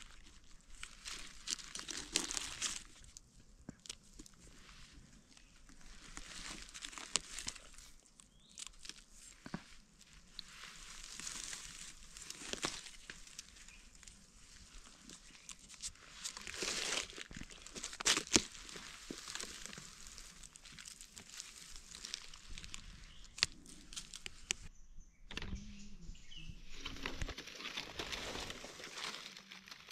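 Dry leaf litter and grass rustling and crackling in irregular bouts, with scattered small clicks and scrapes, as gloved hands and a knife dig mushrooms out of the forest floor. A brief lull comes near the end.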